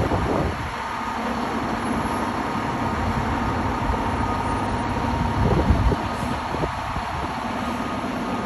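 Wind buffeting the microphone over a steady low hum, with a stronger gust about five and a half seconds in.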